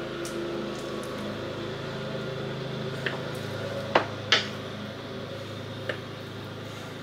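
Lawnmower engine running steadily, its pitch dropping slightly a little over three seconds in. A few sharp clicks of a knife striking a cutting board, the loudest about four seconds in.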